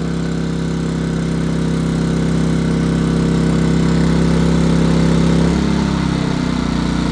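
Westinghouse iGen2550 inverter generator's engine running steadily under a heater load. About five and a half seconds in, its note drops and settles lower, the inverter slowing the engine as the electrical load comes down.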